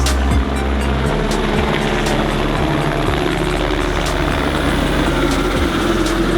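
Helicopter flying nearby, a steady hum of its rotor and turbine engine.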